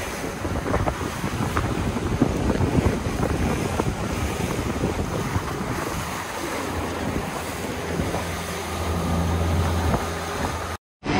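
Boat under way at trolling speed: wind buffeting the microphone over the rush of the wake, with a steady low hum from the outboard engine. The sound drops out briefly near the end.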